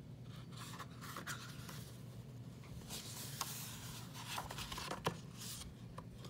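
Paper pages of a hardcover book being turned and handled: several soft rustles and scrapes, with a couple of short sharp clicks, over a faint steady hum.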